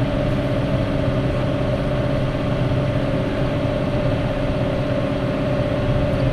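Tractor engine running steadily with a fixed-chamber round baler working behind it while baling straw, heard from inside the cab: an even drone with a steady held tone over it.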